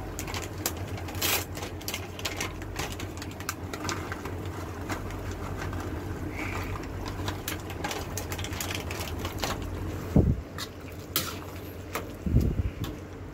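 Pork menudo simmering in a wok, with small pops and clicks over a steady low hum. Two dull knocks, about ten seconds in and again near the end, as a metal ladle stirs the pan.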